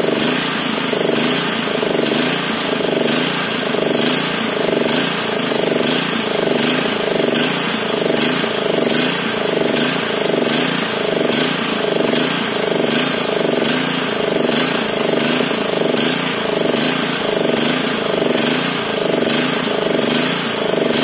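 Honda GX160 single-cylinder four-stroke engine running steadily, with a regular slight rise and fall about once a second. It is running with the fuel tap closed, on the petrol left in the carburettor.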